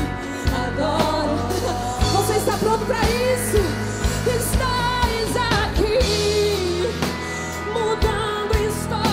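A live worship band plays a song: several singers together over drums, bass guitar and keyboards, with a steady drum beat.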